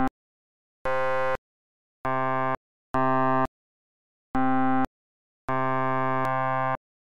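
Web Audio synthesizer tones from waveforms evolved by neuroevolution (CPPN-NEAT), frequency-modulated: a string of separate steady, buzzy notes about half a second each, broken by dead silence, each with a different timbre as a different evolved waveform is played. The last note lasts about a second, with a change in timbre partway through.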